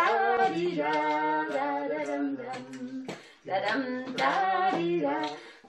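A person singing a wordless tune in two phrases, holding steady notes, with a short break about three seconds in.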